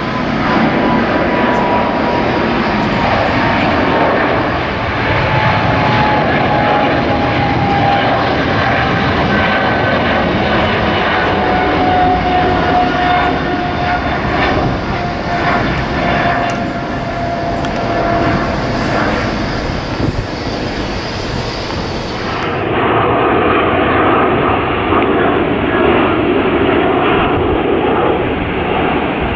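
A Boeing 777-300ER's twin GE90 turbofans at climb power as the jet climbs away after takeoff: a steady jet roar with a whining tone that slowly falls in pitch. About three-quarters of the way through, the sound cuts abruptly to a duller, steady rumble.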